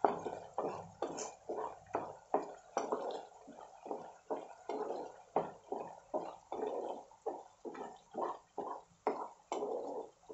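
A spatula stirring thick gravy in a pan, wet squelching and scraping strokes at about two a second.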